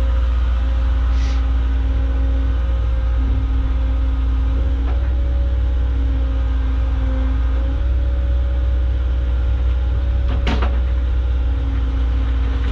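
Small Caterpillar excavator's diesel engine running steadily, with a hydraulic whine that comes and goes as the boom and bucket are worked. A short hiss sounds about a second in and a sharp knock about ten seconds in.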